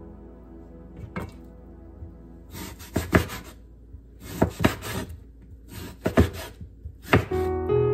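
Chef's knife cutting through raw fish fillets and knocking on a wooden cutting board, in short runs of sharp taps, over soft background music. Louder piano music comes in near the end.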